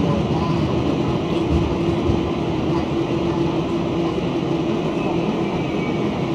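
Inside the passenger cabin of an Auckland AM class electric train moving through the station: a steady traction-motor hum over the rumble of wheels on the rails.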